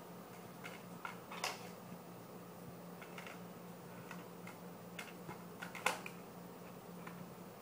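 Toy plastic plates and dish rack clicking and tapping lightly as a child handles them, with scattered small knocks; the sharpest comes about six seconds in. A faint steady hum runs underneath.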